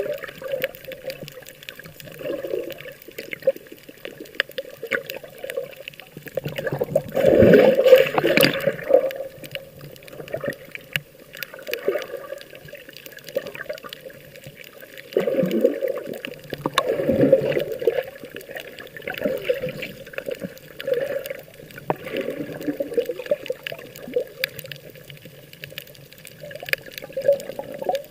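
Sea water sloshing and gurgling close to the microphone, in uneven surges, the biggest about seven seconds in.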